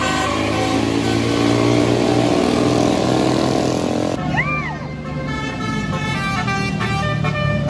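Tour bus running close by, sounding its telolet multi-tone air horn: first a held chord of several horn tones over the engine, then, after a short up-and-down whistle-like note about four seconds in, the horn plays a tune of short notes at changing pitches.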